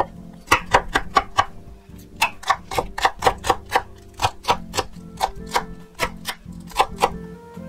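Chef's knife chopping carrot and green onion on a wooden cutting board: quick, even strikes about four a second, with a short pause near the two-second mark.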